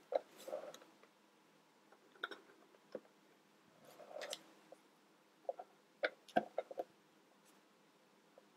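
Plastic toy construction-kit pieces being handled and pushed together: scattered light clicks and short rustles, with a quick run of clicks about six seconds in.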